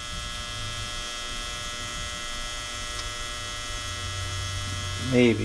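Steady electrical mains hum with a buzzy edge, unchanging throughout.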